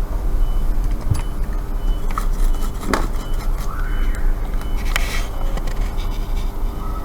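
Steady electrical hum of repair-bench equipment, with a few sharp clicks and scrapes of small tools on a circuit board about one, three and five seconds in.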